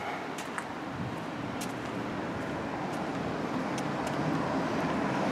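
Road traffic on a town street: a car's tyre and engine noise growing steadily louder as it approaches, with a few faint ticks over it.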